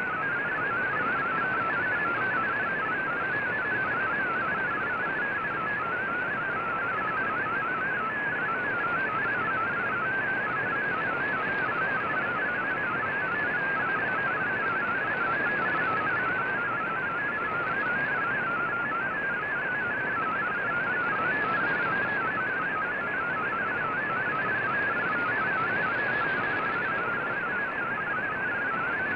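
Shortwave digital-mode data signal, MFSK tones from a VOA Radiogram broadcast, heard through a receiver: a fast, continuous warble of hopping tones in a narrow mid-pitched band, over a steady hiss of band noise.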